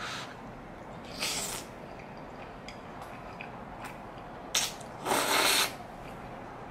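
Spaghetti slurped up in several quick hissing pulls, with mouth and chewing noises; the longest and loudest slurp comes about five seconds in, and a few small clicks fall between.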